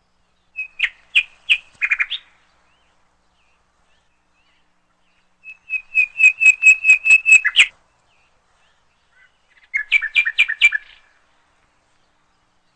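A songbird singing three short phrases of quick repeated chirping notes, each phrase one to two seconds long, with pauses of a few seconds between them.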